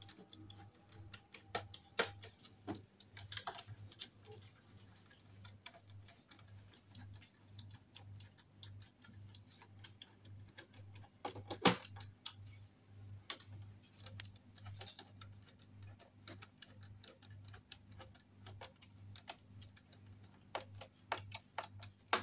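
Screws being turned into a wooden cot frame with a hand screwdriver: a long run of small irregular clicks and ticks of the tip working in the screw heads, with one louder knock about twelve seconds in, over a faint low hum.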